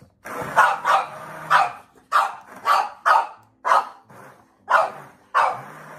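A dog barking repeatedly, about ten sharp, loud barks in quick succession.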